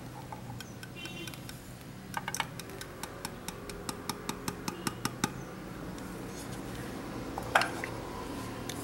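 Clear plastic grinder cup tapped repeatedly against the rim of a metal espresso portafilter basket to knock the last ground coffee out: a run of about a dozen light clicks, three or four a second, then a single louder knock near the end as the portafilter is moved on its saucer.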